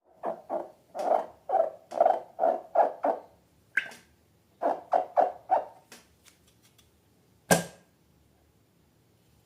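Slime squished and worked by hand in quick wet squelches about two a second, a short pause, then a few more, with a sharp snap about seven and a half seconds in.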